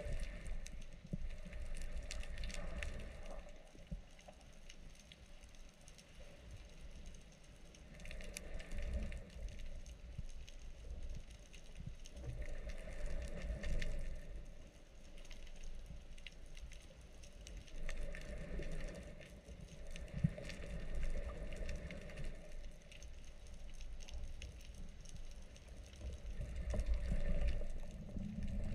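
Muffled underwater noise heard through a waterproof camera housing: a steady low rumble of water with slow swells every few seconds as the diver glides and kicks.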